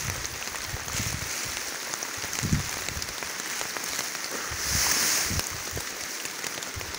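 Steady rain falling on gravel, with scattered drops striking close by. A louder hiss swells briefly about five seconds in.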